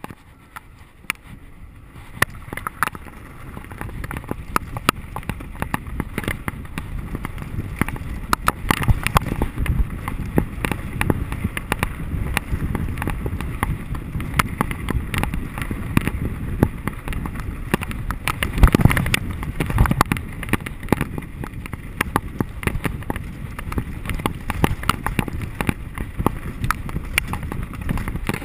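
Mountain bike riding fast down a dirt track: tyres rumbling over the dirt and wind buffeting the microphone, with frequent sharp clicks and rattles from the bike over bumps. It gets louder about two seconds in as speed builds.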